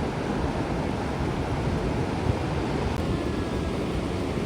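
Steady wind buffeting the microphone, mixed with the wash of ocean surf.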